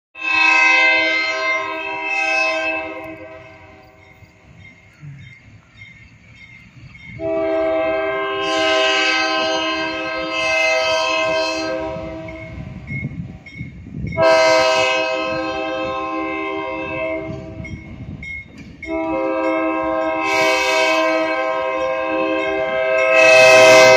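Diesel freight locomotive's air horn sounding four long blasts as it approaches a grade crossing, the last blast the loudest as the train nears. Between blasts the locomotive's diesel engine rumbles low.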